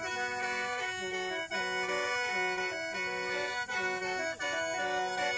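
Khaen, the Lao bamboo free-reed mouth organ, playing a rhythmic tune over held drone notes.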